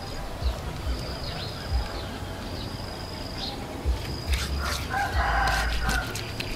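A rooster crows once, for about a second, starting about five seconds in. A high chirp from another bird repeats about once a second, and there are soft low thuds from a hand smoothing wet clay.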